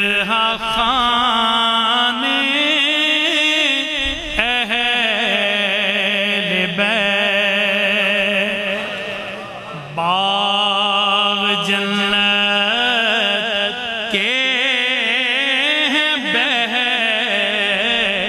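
A man singing an Urdu devotional kalam (manqabat) in long, ornamented held notes, with a brief breath pause about ten seconds in.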